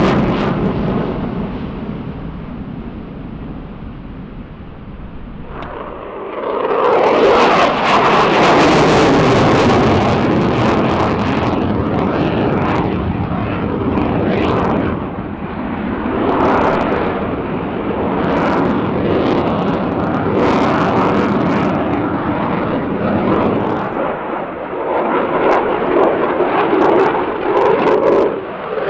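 Jet noise from a Saab JAS 39E Gripen's single General Electric F414G turbofan during a fighter display. It fades over the first few seconds, swells sharply about six seconds in, and then stays loud, rising and falling as the jet manoeuvres.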